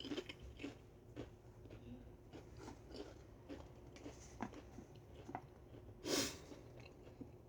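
A person chewing Pringles potato crisps: faint, irregular small crunches. One louder, short noisy burst comes about six seconds in.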